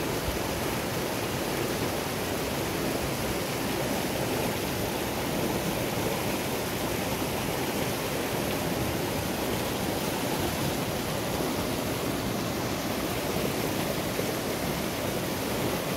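Rushing mountain river: water tumbling over boulders through whitewater rapids, a steady, unbroken rush.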